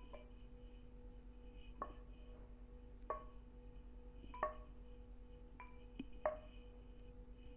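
Pan and spatula knocking against a glass serving bowl while semolina kesari is scraped out: about six short ringing clinks, a second or so apart, the loudest near the end, over a faint steady hum.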